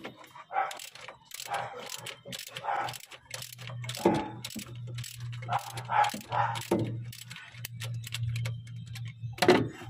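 Ratchet wrench clicking in irregular runs, with metal tool knocks, as a bolt near the engine's thermostat housing is worked. A steady low hum comes in about three seconds in.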